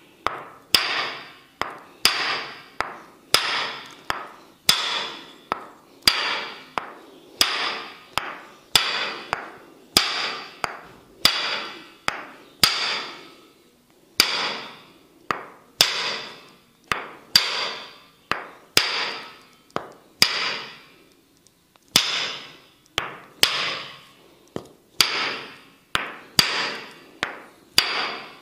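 Tok sen massage: a wooden mallet tapping a wooden stick held against the body, an even beat of sharp knocks about one and a half a second, each with a short ringing tail. The beat pauses briefly twice.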